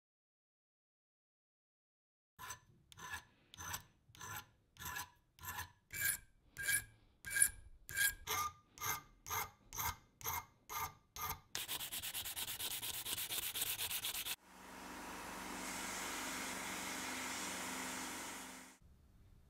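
Hand strokes rubbing or filing metal, about two a second, each with a slight ring. They give way to about three seconds of fast continuous scraping, then a small power tool running steadily for about four seconds before it cuts off.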